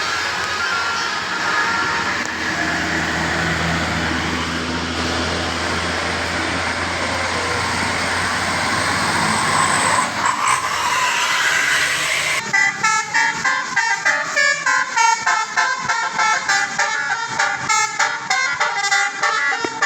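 Bus engine and road noise, then abruptly a Basuri 'telolet' musical air horn on a bus plays a quick tune of short, changing notes.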